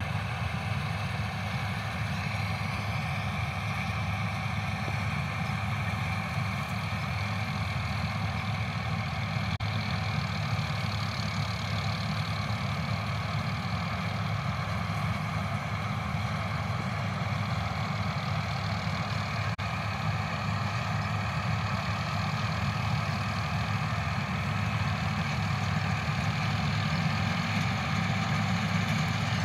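Combine harvester engine running steadily while it harvests soybean, growing a little louder near the end.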